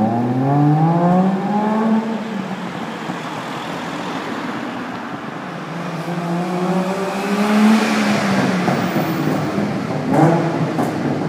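1965 Saab 96's three-cylinder two-stroke engine accelerating away, its pitch climbing in the first couple of seconds, then climbing again to a peak about eight seconds in before falling off.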